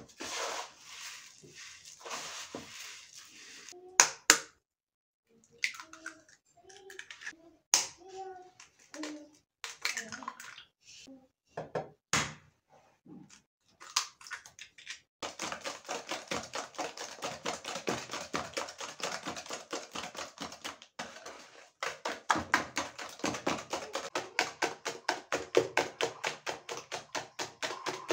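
Sugar and lemon zest rubbed together by hand in a bowl, then eggs knocked on the bowl's rim and cracked in, a few sharp loud knocks. About halfway through, a wire whisk starts beating the eggs and sugar in quick, even strokes, about five a second.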